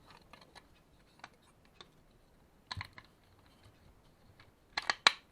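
Small plastic parts of a printer's fuser drive gearbox clicking and tapping as they are handled: scattered light clicks, with a quick cluster of sharper clicks near the end.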